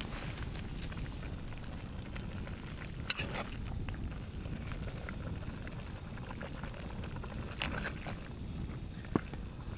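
Khashlama broth of beef and vegetables bubbling in a cauldron over a wood fire while a metal skimmer scoops through it. There are three sharp clinks of the skimmer against the metal, about three, seven and a half, and nine seconds in.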